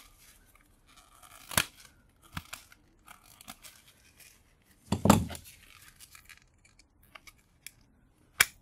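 Metal tabs on a small microwave motor's steel cover plate being bent back and the plate worked loose: scraping and crinkling metal with a few sharp clicks, the loudest a clank about five seconds in.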